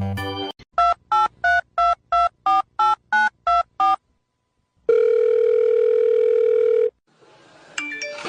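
Telephone keypad tones: about ten quick beeps, each a pair of tones, as a number is dialed, followed after a short pause by one steady two-second ringback tone of the line ringing.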